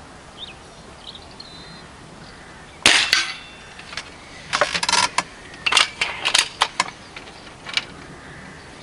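A Remington Warhawk .22 spring-piston air rifle fires once about three seconds in: a sharp crack with a short ring. A string of clicks and knocks follows as the rifle is handled and lifted off its rest.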